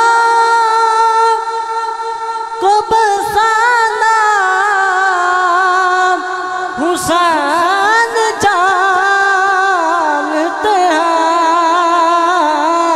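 A young man's solo voice singing an Urdu manqabat in praise of Imam Hussain into a microphone, drawing out long melismatic notes that waver in pitch, with a few short breaks between phrases.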